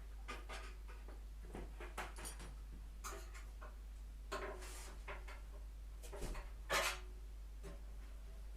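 Scattered light clicks, knocks and scrapes of tools and metal parts being handled during hand work on a motorcycle, some with a short metallic ring and the loudest knock about two thirds through, over a steady low electrical hum.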